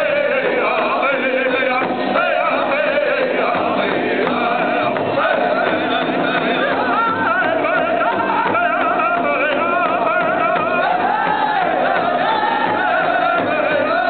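Powwow drum group: several men singing loudly in unison, with a wavering melody that climbs a little about two-thirds of the way through, over the steady beat of a large hide-headed powwow drum struck together with padded beaters.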